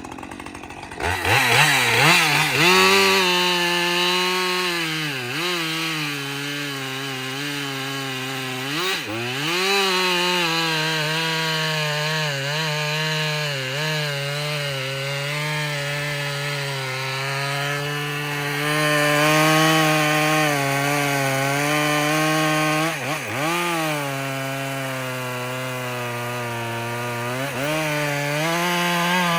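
Stock 50cc Husqvarna 545 chainsaw with a semi-chisel chain, revving up about a second in and then running at full throttle as it cuts through a log. Its pitch dips briefly a few times as the chain bites and then recovers, and the engine falls back to idle right at the end.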